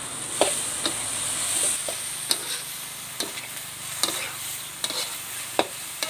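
Metal spatula scraping and knocking against a steel wok while stir-frying minced pork and sataw beans, over a steady sizzle. The spatula strikes the pan about seven times, roughly once a second.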